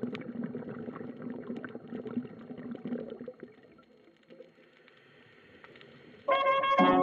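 Muffled underwater gurgling and bubbling with faint clicks, fading to near quiet about halfway through. Music with brass starts suddenly near the end.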